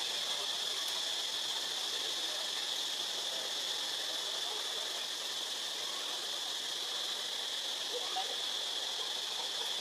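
Steady forest ambience: a continuous, even high-pitched hiss with no distinct calls or knocks.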